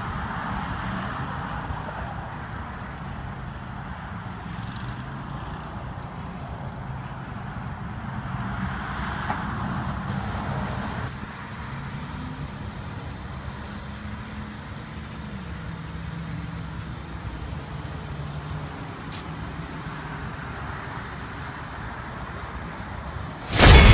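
Motor vehicle engine running steadily at idle, a low hum whose pitch drops slightly about two-thirds of the way through, with swells of traffic noise. A sudden loud burst of sound cuts in near the end.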